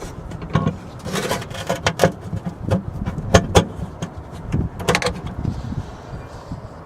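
Hand rivet gun and small metal parts being handled: a run of irregular clicks and knocks, dying down near the end.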